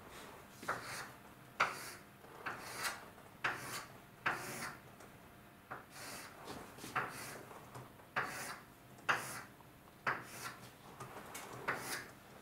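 Drawing lines on a lecture board: a series of short rubbing strokes, irregular but roughly one a second.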